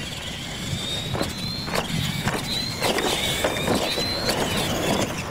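Electric radio-controlled monster trucks racing on dirt: a high motor whine that shifts in pitch with the throttle, with several sharp knocks as the trucks hit and land off the jumps.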